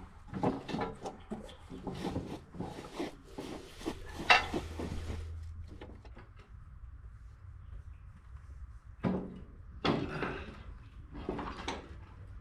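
Irregular knocks and clanks of parts being handled while a snow plow is taken off an ATV, the sharpest knock about four seconds in; after a pause there are a few more knocks near the end.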